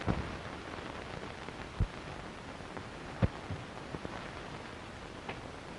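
Steady hiss of an early-1930s film soundtrack, with a few scattered clicks and pops.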